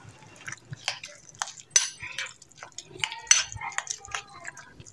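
Metal spoon stirring a wet minced-chicken mixture in a glass bowl: soft, irregular scrapes and clinks against the glass, a couple of them sharper.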